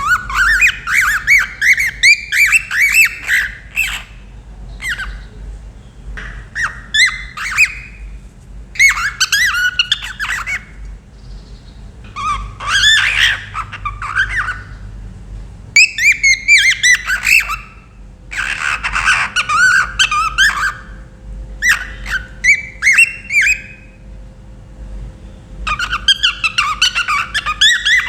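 Pet cockatiel chirping and whistling loudly in repeated bursts of quick, warbling up-and-down notes, each burst a second or two long with short pauses between them.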